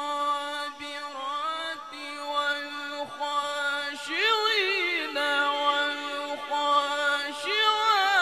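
A male qari chanting Quran recitation in tajweed style, holding one long drawn-out note at a steady pitch. About four seconds in, the note breaks into wavering ornamental turns.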